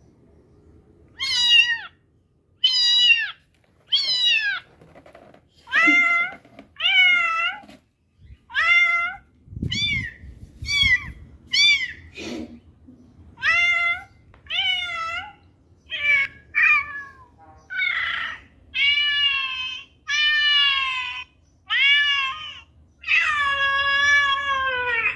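Kitten meowing over and over, about one call a second: short, high-pitched mews that drop in pitch at the end, growing longer in the last few seconds.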